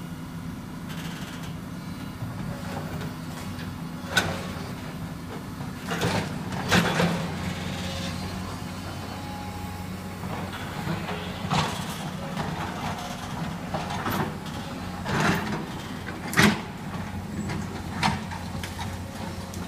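An excavator working a pile of demolition rubble: a steady engine hum, with about half a dozen irregular crunches and clanks.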